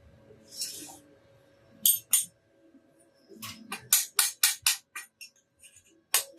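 Background music: a tambourine-like shaker rhythm that starts sparsely and settles into an even beat of about four strokes a second.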